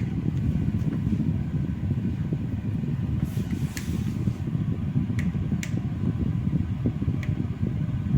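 Three-speed electric fan running, its airflow making a steady low rumble with a fluttering, buffeting quality, with a few faint clicks.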